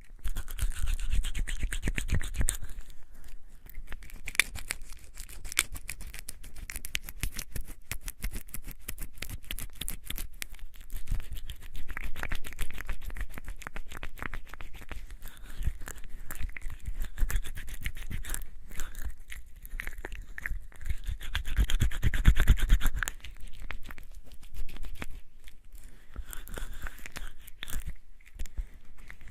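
Hands being washed with bar soap: wet, soapy rubbing and squishing with a dense crackle of small clicks, swelling a little louder about two-thirds of the way through.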